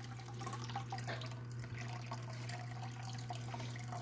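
Water trickling and dripping as classified prospecting material, screened down to 8 mesh, is run through with water. A steady low hum runs underneath.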